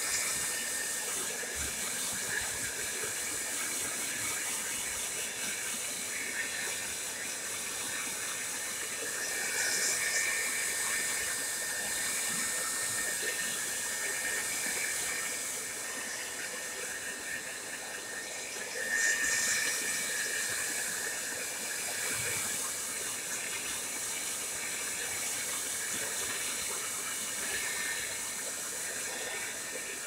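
Tresemmé Salon Smooth Professional hair dryer running steadily, a rush of blown air over a steady high motor whine. The airflow swells louder twice, about ten and nineteen seconds in.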